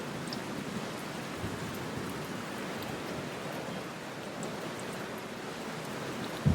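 Light rain falling steadily on window glass: an even hiss with a few faint drop ticks.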